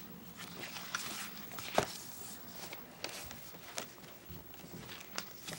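Pages of a large glossy art book being handled and turned: paper rustling and swishing, with a sharp paper snap a little under two seconds in.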